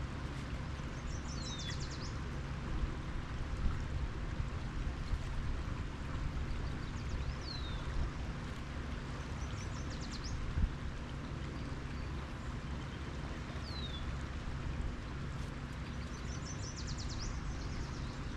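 Steady rush of river water and wind on the microphone, with a songbird calling several times: short falling whistles and quick stuttering trills.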